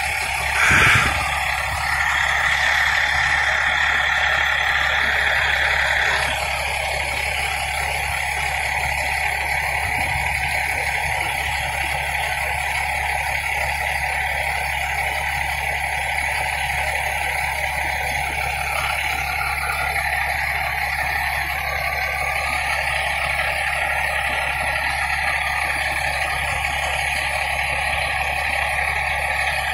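Fire engine's diesel engine idling steadily, with a brief louder noise about a second in.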